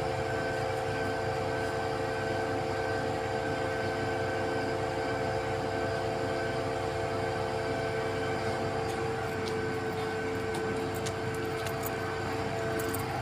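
XCMG truck-mounted concrete pump running steadily, a constant machine drone with a steady whine over it and a few light ticks in the last few seconds.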